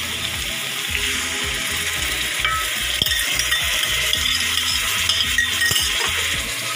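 Chicken and its spice masala sizzling steadily in hot oil in a pot, stirred with a wooden spoon.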